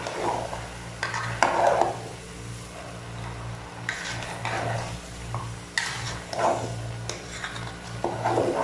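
A metal slotted spatula stirring chunks of chicken, potato and carrot in a metal cooking pot, scraping and clinking against the pot in bouts every second or two.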